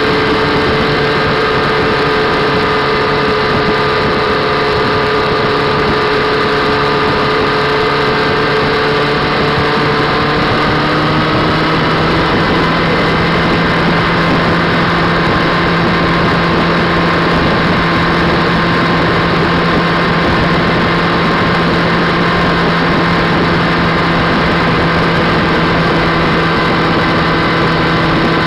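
Motorcycle engine running at steady cruising speed under a haze of wind and road noise; its note shifts slightly about eleven seconds in.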